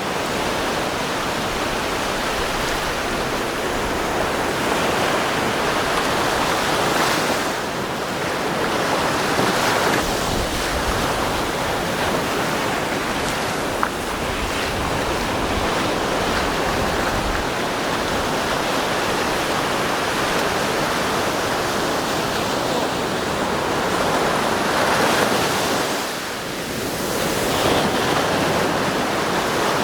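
Sea waves breaking and washing up a sandy beach: a steady rush of surf that swells and eases every few seconds.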